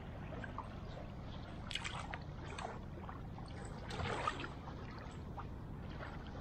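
Shallow water lapping at a sandy shoreline, with a few small splashes, the largest about four seconds in, over a steady low rumble.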